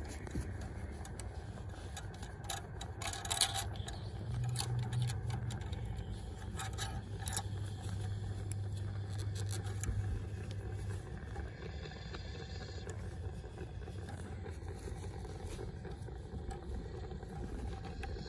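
Light scrapes and clicks of a hand working loose the high-pressure fuel line fitting on a 2.7 EcoBoost's high-pressure fuel pump, wrapped in a shop towel, over a steady low hum. A cluster of clicks about three seconds in and another near seven seconds.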